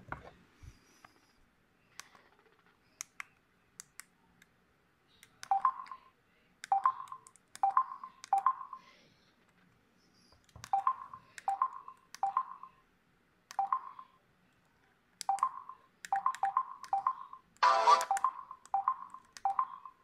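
LG KS360 mobile phone's keypad tones: short beeps, one per key press while scrolling through menus. They come at irregular intervals and crowd together near the end, after a few faint clicks at the start.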